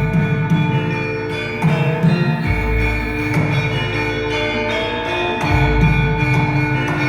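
Javanese gamelan-style music for a dance performance: bronze metallophones and bells ringing in interlocking patterns over drums, with deep low swells.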